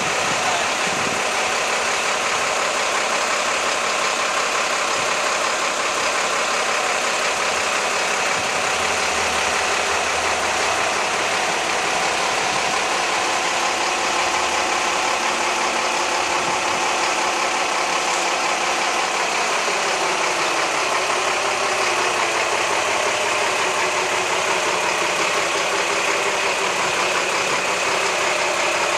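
Diesel engines of two Scania fire engines running at idle. About two-thirds of the way through, one engine's note dips and then rises as that engine moves off.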